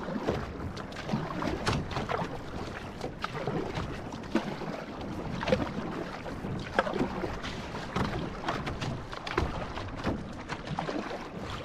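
Outrigger canoe (va'a) being paddled: the paddle's blade splashes in at an uneven pace of about once a second, over a steady wash of water along the hull.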